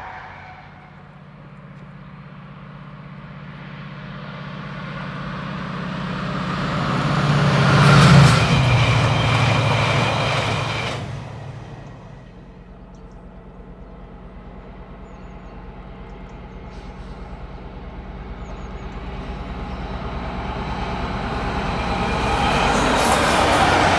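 A train passes with a low diesel engine drone, loudest about eight seconds in, then fades. A DB Cargo Class 60 diesel-electric locomotive running light then approaches, its engine drone and rail noise growing steadily louder until it is close by near the end.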